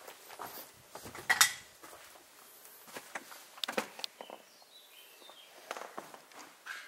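Footsteps with scattered knocks and clinks over a littered floor, one sharp clink about a second and a half in. A bird chirps faintly near the middle.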